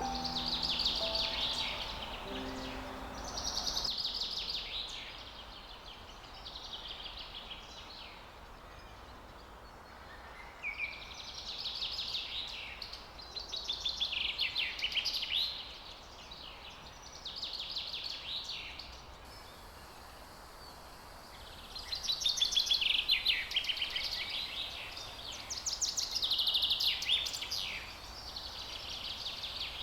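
A songbird singing loud, high trilled phrases, each a second or two long, repeated every few seconds with short pauses. Soft background music fades out in the first few seconds.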